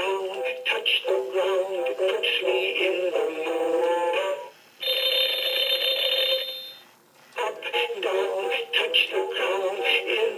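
Winnie the Pooh & Piglet animated alarm clock playing an electronic melody through its speaker. The tune breaks off briefly for a single held note of about two seconds, then stops for a moment and starts again.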